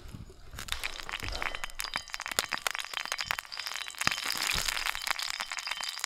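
Breakfast cooking over a campfire: dense crackling and popping that sets in sharply about half a second in and keeps going.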